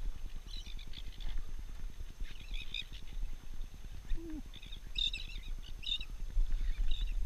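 Seabirds calling in short bursts of high chirps, several times, over a steady low rumble.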